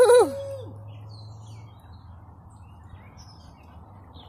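A loud, drawn-out voice falls away within the first second. After it, birds chirp faintly now and then over a steady low hum.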